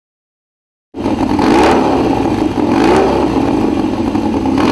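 Motorcycle engine running loud, starting suddenly about a second in and swelling a few times as it is revved.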